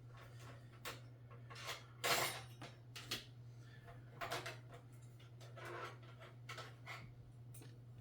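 Small hard computer parts being handled: scattered clicks and light clinks, with a louder rustling scrape about two seconds in, over a steady low hum.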